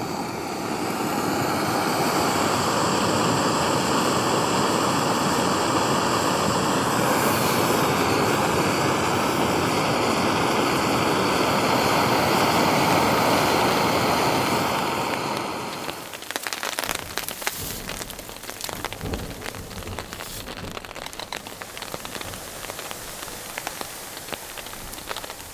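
Small SOTO gas canister stove burning under a metal mug with a steady hiss and a faint whistle. About fifteen seconds in the flame is shut off, and a spoon then clinks and scrapes against the mug as the drink is stirred.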